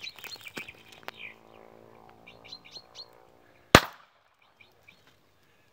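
Small birds chirping in short high notes, then a single sharp gunshot a little under four seconds in, the loudest sound by far.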